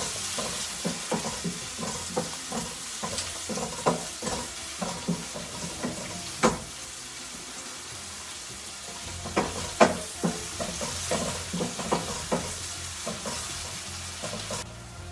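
Sliced onion, capsicum and chillies sizzling in hot oil in a nonstick pan while a wooden spatula stirs them: a steady sizzle broken by frequent scraping knocks of the spatula against the pan, with a short lull about halfway through.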